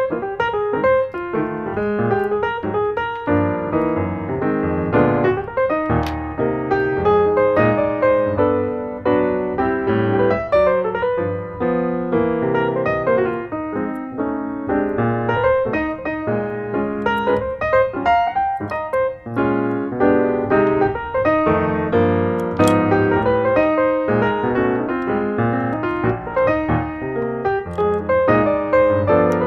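Background piano music: a steady run of melodic piano notes.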